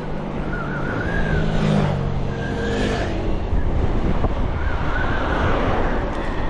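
Wind rushing over the microphone of an e-mountain bike ridden along a road. About a second in, a motor vehicle's engine hum swells and fades again as it passes.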